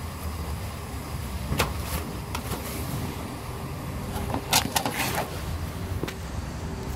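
Outdoor car-park ambience: a steady low rumble with a few short clicks and knocks, the loudest a small cluster about four and a half seconds in.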